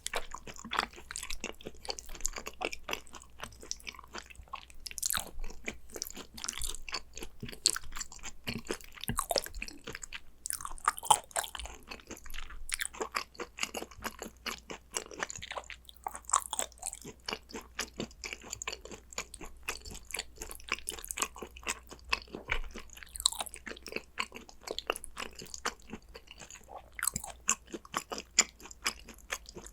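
Chewing of gochujang-dressed raw Korean beef (yukhoe): a dense, continuous run of small mouth clicks.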